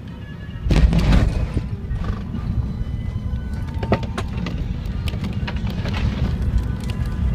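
Airbus A380 touching down, heard from inside the cabin: a sudden heavy thud and surge of low rumble about a second in as the main gear meets the runway, then a steady roar of the landing roll with occasional rattles and knocks as the spoilers are up.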